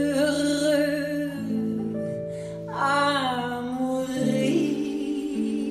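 Traditional New Orleans-style jazz band playing a slow ballad: two long melody phrases with vibrato over sustained chords, with plucked strings underneath.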